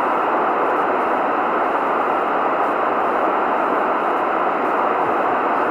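Steady, loud hiss of FM receiver static from an 11-metre CB radio's speaker, with no voice coming through it: the radio is listening on 26.825 MHz for a weak skip station.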